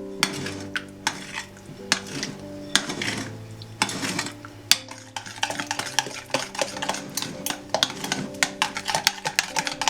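Utensil stirring and clinking against a mixing bowl while baking, with sharp irregular clicks that come faster and denser in the second half.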